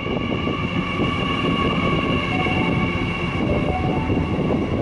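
10-car Hyundai Rotem D set double-deck electric train passing through at speed: a loud, steady rumble of wheels on rail with several steady high-pitched tones over it.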